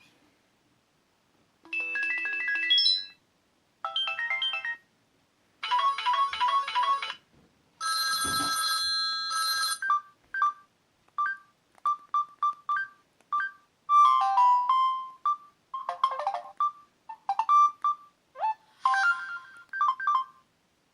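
Samsung C3530 mobile phone playing its preloaded ringtones one after another: a series of short electronic melodies, each a second or two long, with brief pauses between them. The later tones are quick runs of beeping blips.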